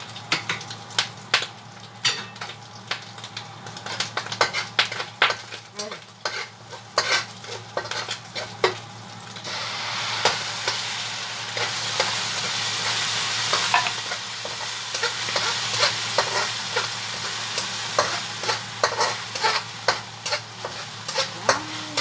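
Quick, irregular clinks of a metal utensil against a bowl as ingredients are stirred. About nine or ten seconds in, a steady sizzle of food frying in a hot pan comes in and carries on under the clinking.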